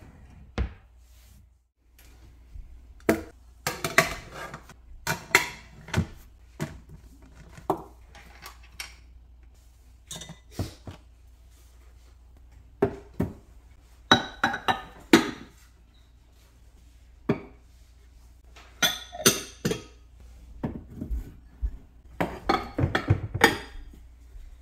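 Dishes clinking and knocking in scattered clusters of sharp strikes as plates and bowls are set down and stacked on a cabinet shelf and wire plate rack.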